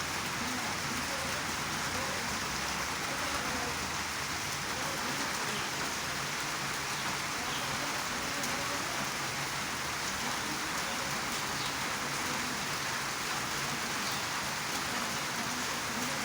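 Steady rain falling on a road, an even hiss with no let-up.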